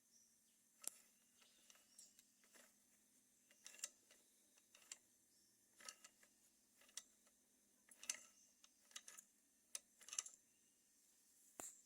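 Faint, irregular small clicks and taps, a dozen or so spread over near silence, from the motorcycle gearbox parts being handled and turned by hand.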